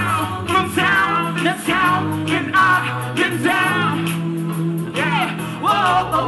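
Live band music: a man and a woman singing into microphones over drums and sustained bass notes.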